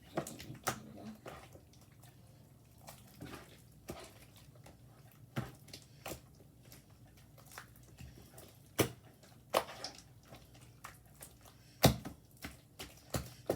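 Sticky homemade glue slime being squished and stretched by hand, making irregular wet clicks and pops, the loudest about nine and twelve seconds in.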